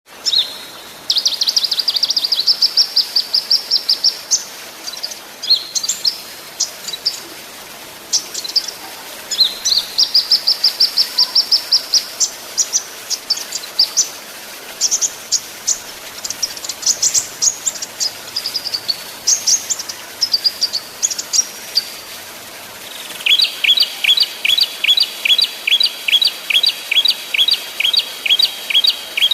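Small songbirds singing rapid, high trills and sharp bursts of notes: the fast, dense 'tembakan' rolls of an Indonesian masteran tutor recording for training songbirds. From about 23 seconds in, a steady run of quick downward-slurred notes, about four a second.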